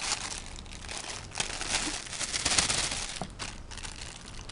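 Thin clear plastic bag crinkling and crackling irregularly as it is handled, loudest a little past the middle.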